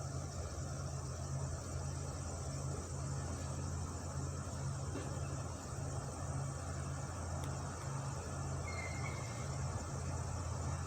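Steady low mechanical drone, pulsing about twice a second, under a faint hiss, with one brief high chirp near the end.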